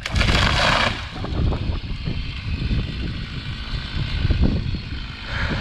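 A large dead pine tree coming down: a loud crash of breaking branches in the first second, then a low rumble.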